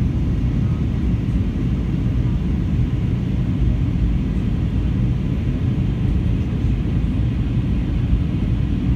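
Steady cabin noise inside an Airbus A321 in flight: a low, even rumble of the engines and airflow, heard from a window seat over the wing, with a faint steady whine above it.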